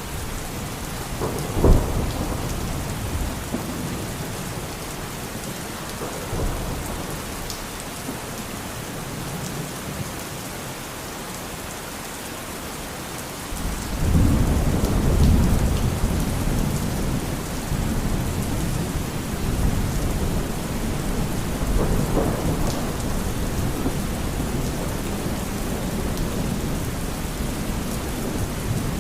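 Steady rain falling during a thunderstorm. About two seconds in, a sharp thunderclap cracks. About halfway through, a long, low rumble of thunder sets in and keeps rolling.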